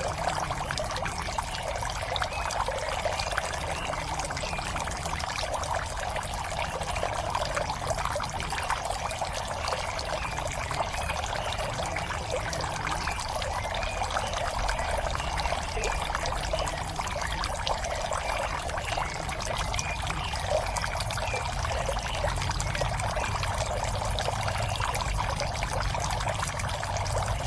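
Water steadily pouring and trickling into a fish pond, with a low rumble underneath.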